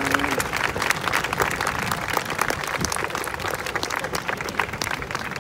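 Audience clapping in applause, a dense patter of many hands that thins slightly toward the end.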